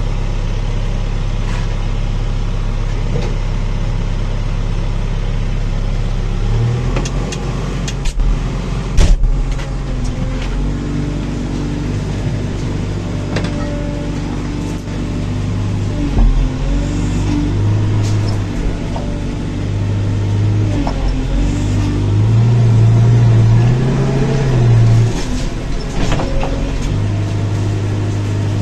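Backhoe loader's diesel engine heard from inside the cab, working under load as it clears a track: a steady drone that shifts speed from about a quarter of the way in and revs up to its highest pitch about three-quarters through before dropping back. A few sharp knocks come about eight to nine seconds in, the loudest single sound.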